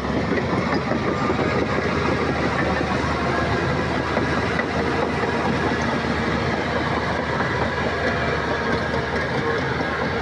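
Heavy diesel earthmoving machinery running steadily, with a continuous dense mechanical clatter.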